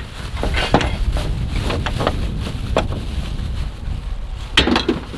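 Scattered knocks and rattles of debris being moved about while rummaging through a dumpster, over a steady low rumble of wind on the microphone. The loudest knock comes near the end.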